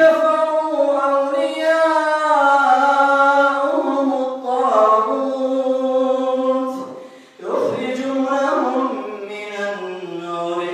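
An imam reciting the Quran aloud in prayer: a man's solo voice chanting long, drawn-out melodic phrases, with one breath pause about seven seconds in.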